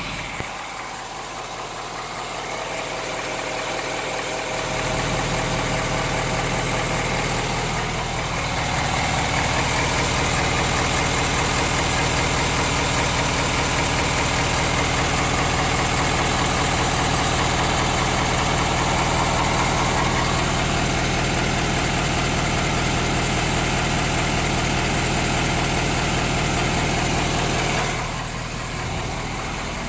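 Ford 6.7L Power Stroke V8 turbo-diesel idling warm, with a knock that the owner finds less obvious now that the engine has warmed up. The engine grows louder a few seconds in and drops back near the end.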